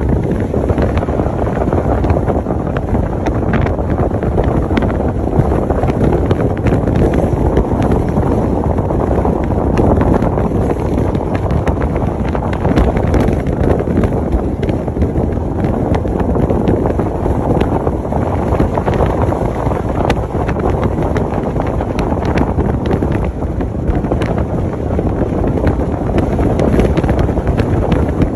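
Steady wind buffeting the microphone from a moving car, over the low rumble of the car on the road.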